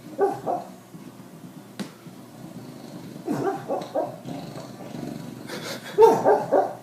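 A sleeping dog, dreaming, letting out muffled little woofs and yips in three short clusters, the last one near the end the loudest.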